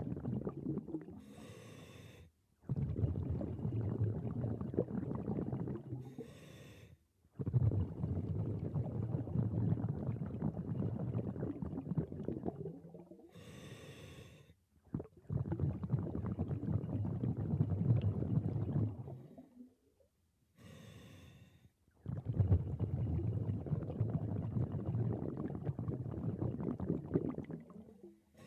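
Scuba diver breathing through a regulator underwater. Each breath is a short hissing inhale of about a second, followed by several seconds of rumbling, bubbling exhaust, about four breaths in all.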